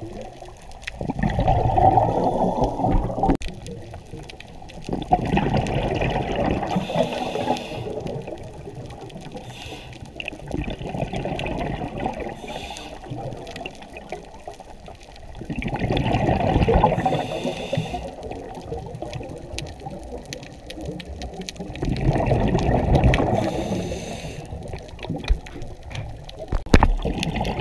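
Scuba regulator exhalations heard underwater: a diver's exhaled breath bubbling out of the regulator in gurgling bursts, about five times at an even breathing rhythm, with quieter inhalations between them.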